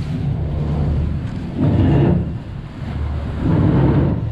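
Azimut motor yacht's engines running as it manoeuvres off its berth: a steady low rumble that swells twice.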